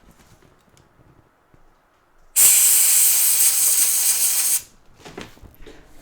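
One continuous burst of hiss from a pressurised spray can, about two seconds long, starting and stopping abruptly, as the freshly reflowed logic board is sprayed clean; a few faint handling knocks follow.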